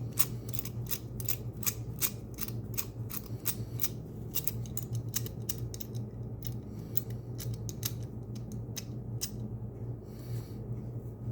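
Number wheels of a Master Lock Pro Series 1178 combination padlock being spun by hand to scramble the code: a long run of small sharp clicks, roughly three a second, pausing briefly near the end, over a steady low hum.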